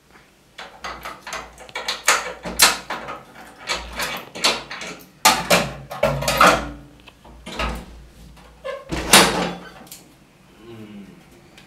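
Repeated knocking on a door, in irregular clusters of sharp knocks that stop about nine seconds in.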